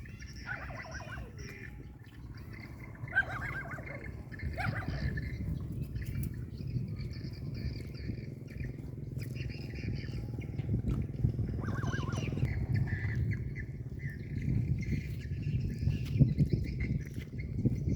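Birds calling: several short squawking calls that fall in pitch, near the start, a few seconds in and again around the middle, over steady high chirping and a continuous low rumble.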